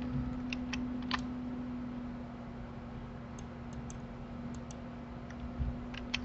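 Computer mouse and keyboard clicks while working in 3D software: scattered sharp clicks, a few early, a cluster in the middle and two near the end, over a steady low electrical hum.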